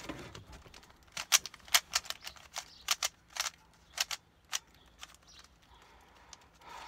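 Plastic 3x3 puzzle cube being twisted by hand, its layers turning with sharp, irregular clicks. The clicks come thick and fast in the middle of the stretch, then thin out to a few near the end.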